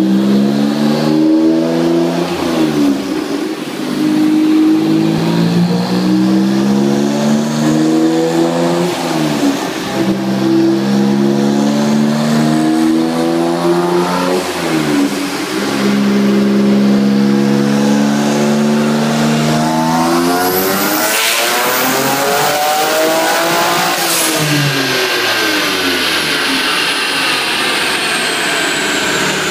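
Noble M12 GTO-3R's twin-turbocharged Ford Duratec V6 on a chassis dyno, pulling hard through the gears. The engine note climbs, drops at each shift about every five seconds, and reaches its highest about three-quarters of the way through. It then falls steadily as the car slows, with a thin high whine falling away.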